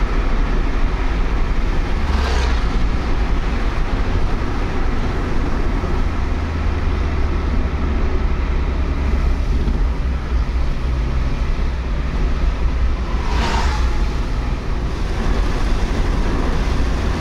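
Steady road and engine noise inside a moving car at highway speed: a low rumble with tyre hiss. Two brief whooshes come as vehicles pass, about two seconds in and again near the end.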